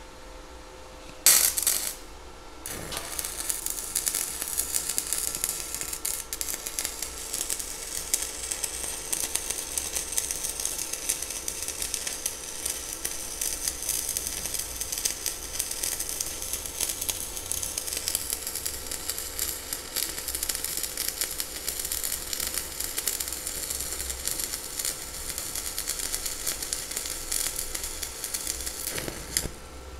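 Stick (MMA) welding arc from an ESAB OK 46 rutile-cellulose electrode burning at 60 amps. A short loud burst about a second in, then the arc crackles steadily through the run and stops just before the end.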